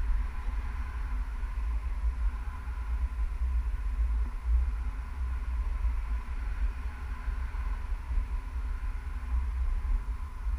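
Wind buffeting the camera microphone of a tandem paraglider in flight: a heavy low rumble that rises and falls unevenly.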